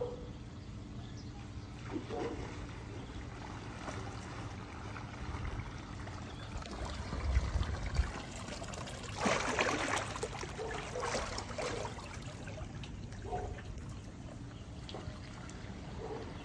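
Canal water splashing and trickling as dolphins move and surface just below, with a louder splashy stretch about nine to twelve seconds in.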